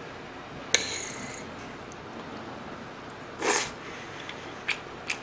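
Close-miked eating of creamy bacon carbonara: a sharp clack with a brief ringing under a second in, a short loud rush of air like a slurp or nasal breath a little after three seconds, then small wet mouth clicks of chewing a full mouthful.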